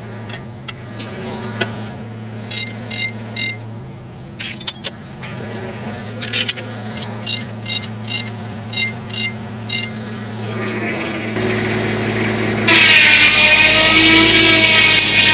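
Tractor-driven homemade circular sawmill with the engine running steadily and groups of short, sharp metallic clinks. About thirteen seconds in, the blade bites into a log and a much louder, high cutting whine takes over.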